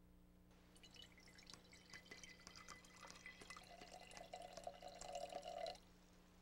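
Faint trickling and dripping of water with small ticks, growing louder and then stopping suddenly about half a second before the end.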